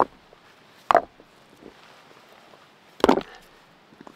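Rocks knocking on rocks as stones are set down one by one onto a stacked-stone pile: three sharp clacks, the one about three seconds in the loudest and longest.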